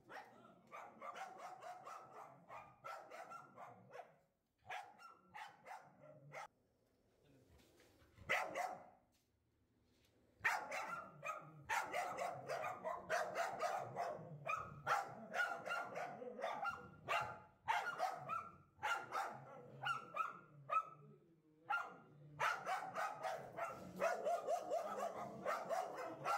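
Dogs barking rapidly and repeatedly at a cobra, an alarm-and-attack barking. The barking thins out for a few seconds about a quarter of the way in, then runs in dense volleys with a short break near the end.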